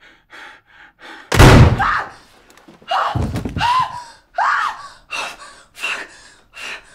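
A single shotgun blast about a second in, followed by a heavy thud and then a run of sharp gasps and panicked breaths.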